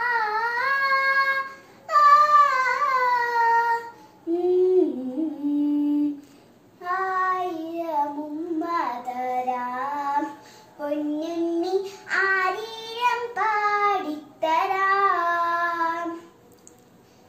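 A young girl singing a song unaccompanied, in phrases of a few seconds each with held, sliding notes and short breaths between them; she stops near the end.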